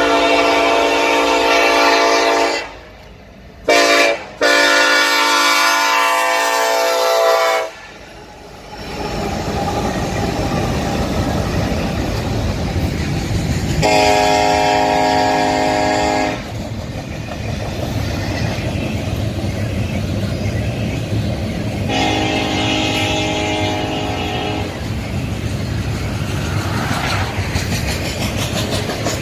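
Diesel locomotive air horn on a Union Pacific EMD SD70AH sounding for a grade crossing: a long blast, a short one and a long one, the end of the crossing signal. About eight seconds in, the steady rumble of double-stack intermodal cars rolling past takes over, with two more horn blasts later, the last one fainter.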